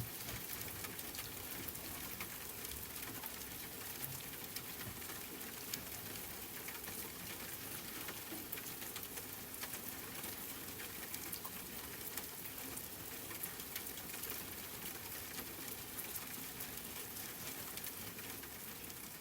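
Soft, steady rain with many faint drop ticks.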